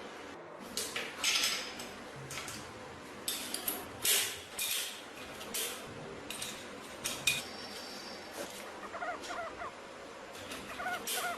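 Metal parts and tools clinking and scraping in irregular bursts, with a couple of short squeaks near the end.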